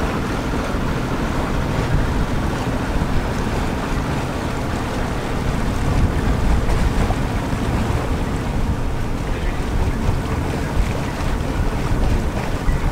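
Wind buffeting the microphone aboard a moving sailboat, with water washing along the hull.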